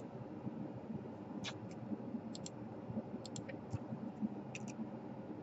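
Scattered small, sharp clicks and taps of hand tools on the small plastic and metal parts of a laptop's DC power jack, over a faint steady hum.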